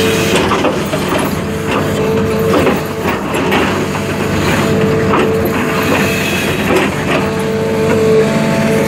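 JCB JS220LC excavator's diesel engine running under load, with a steady whine that comes and goes. Over it, the bucket teeth scrape and crunch into broken rock with repeated knocks.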